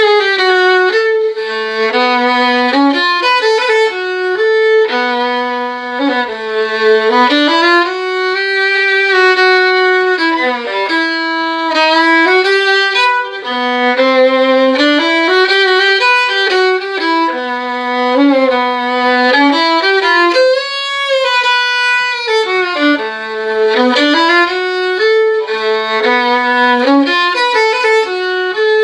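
Solo violin playing a waltz melody with bowed, sustained notes that step up and down.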